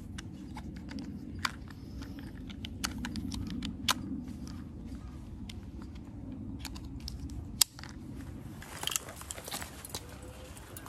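Plastic strap buckles and nylon webbing being handled and fastened: a string of scattered sharp clicks, with one loud snap of a buckle closing about two-thirds of the way through, over a steady low rumble.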